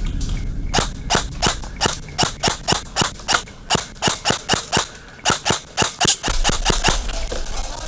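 Airsoft rifle firing single shots in quick succession, about three a second and some twenty in all, as covering fire; the shooting stops about seven seconds in.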